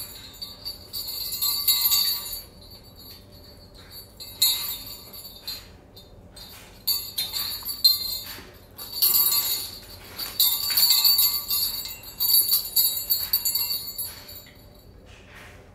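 Small craft jingle bells hung from the cage top on twine, shaken by a pet lovebird playing with them: bright jingling in irregular rattling bursts with short pauses between.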